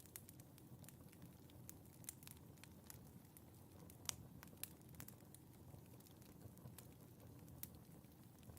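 Faint fire crackling in a fireplace: scattered, irregular snaps and pops over a soft low rumble, with one sharper snap about four seconds in.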